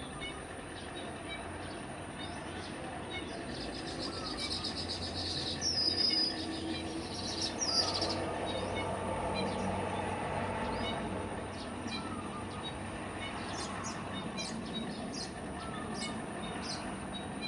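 Weaver birds chirping: a buzzy, chattering run of calls with a couple of down-slurred notes about four to eight seconds in, then scattered short chirps near the end. Underneath is a steady noisy background with a thin, high, steady tone.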